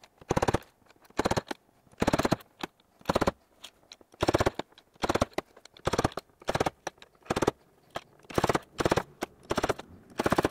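A Vevor FS12000S spot-welding dent puller firing a rapid, uneven series of short weld pulses, roughly one to two a second, as its tip is welded onto the bare steel quarter panel to pull out a dent bit by bit.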